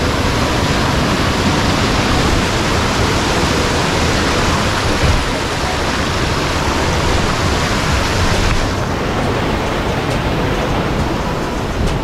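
Water rushing over boulders in a rocky stream's cascades, a loud, steady rush without breaks.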